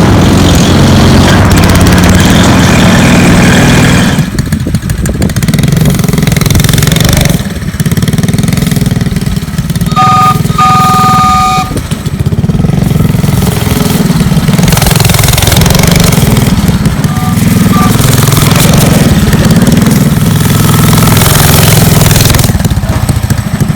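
Small engine running and revving up and down as the ride-on vehicle is driven. Partway through, a short two-tone toot from the horn sounds, followed a few seconds later by a briefer one.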